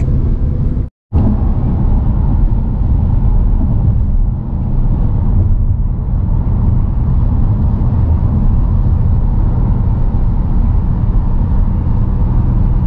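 A car on the road: steady low rumble of tyres and engine, broken by a split-second dropout about a second in.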